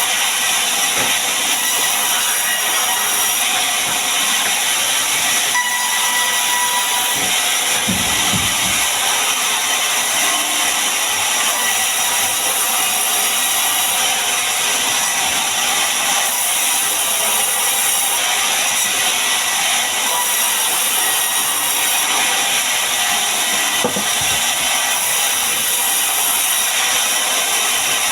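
A power tool working wood, giving a loud, steady hiss that swells faintly every couple of seconds.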